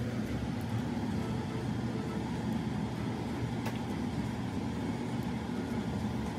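Steady low rumble of background noise, unchanging throughout, with one faint click about three and a half seconds in.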